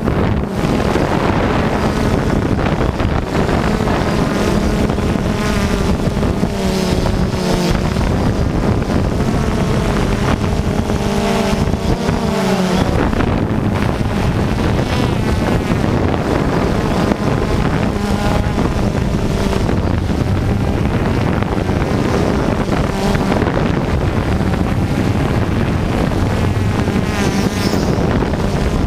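Off-road radio-controlled cars racing on a dirt track, their small motors revving up and down as they pass, with wind on the microphone.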